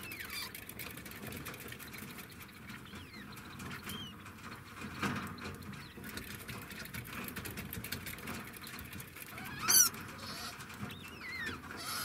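Degus squeaking in short scattered calls that slide up and down in pitch, with one loud warbling squeal about ten seconds in. The calls come from degus play-wrestling.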